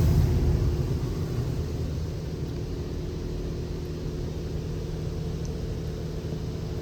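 Touchless automatic car wash machinery heard from inside the car. A louder spray dies away over the first second or two, leaving a steady low rumble and hum from the wash equipment.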